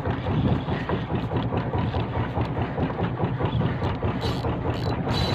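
Fishing boat's engine running steadily with a low rumble, with a couple of short hissing bursts near the end.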